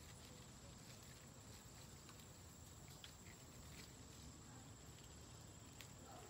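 Near silence: faint outdoor background with a thin steady high tone and a few faint clicks.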